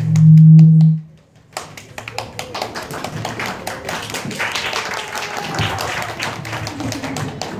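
A loud low hum for about a second, then after a brief pause an audience clapping steadily.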